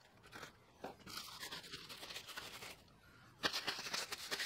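Rustling and crinkling of plastic zip-lock bags and gloves being handled, with many small clicks. It gets clearly louder about three and a half seconds in.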